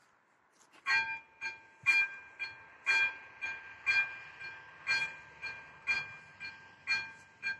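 Electronic warning bell of an AŽD 97 railway level crossing starting to ring about a second in, with evenly spaced ringing strokes about twice a second, alternating louder and softer. The crossing has just activated for an approaching train.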